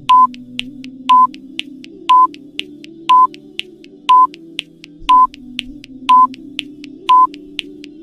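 Countdown-timer sound effect: a short electronic beep every second with a quieter tick between beeps, over soft background music.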